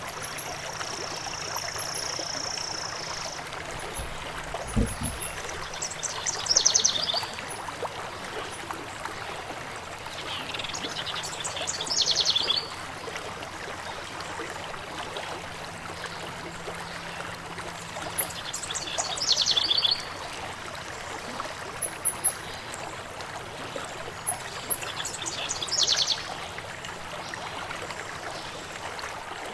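Stream water flowing and trickling steadily, with a songbird repeating a short high chirping phrase four times, spaced several seconds apart. A held high whistle sounds briefly at the start.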